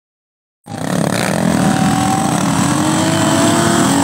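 Vehicle engine running steadily, its pitch drifting a little up and down. It cuts in abruptly under a second in, after total silence.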